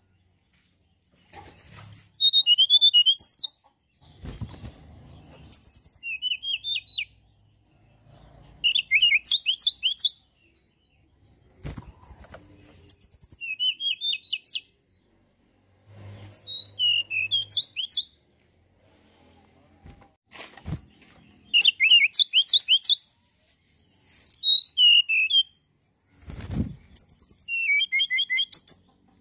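Tledekan gunung songbird singing: about eight short phrases of rapid, high sweeping whistled notes, each lasting a second or two with brief pauses between. Low thuds and rustles fall in some of the pauses, the loudest near the end.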